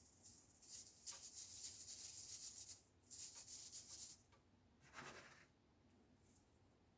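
Soft, scratchy hissing in two spells, then a shorter scrape about five seconds in: hand work laying ballast onto glued OO gauge model railway track.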